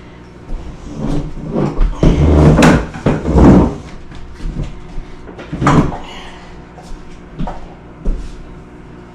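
Household knocking and bumping: a cluster of loud thumps and scrapes about two to four seconds in, then a few single sharp knocks, like cupboards or furniture being handled during kitchen cleaning.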